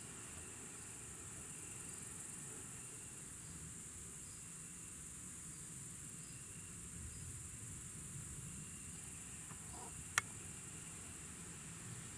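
Steady high-pitched chorus of crickets, with one sharp click about ten seconds in.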